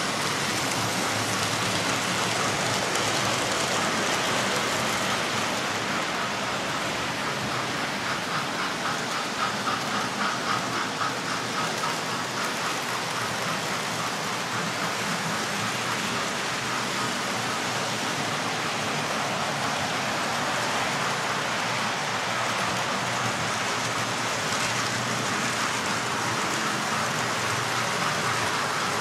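Several model trains running at once: a steady rushing rattle of small wheels on the track and the whirr of their electric motors.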